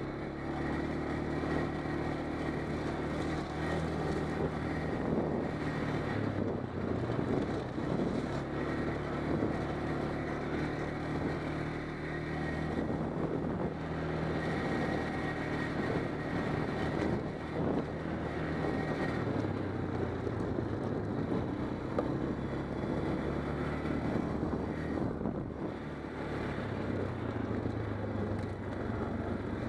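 ATV engine running steadily while riding a rough dirt trail. Its note drops about two-thirds of the way through and climbs again near the end, over the noise of the machine bumping along the ground.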